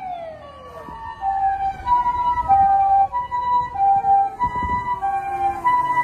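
Japanese ambulance's two-tone siren alternating high and low, each tone about half a second long, starting about a second in. Alongside it another siren's tone slides slowly down in pitch as it winds down.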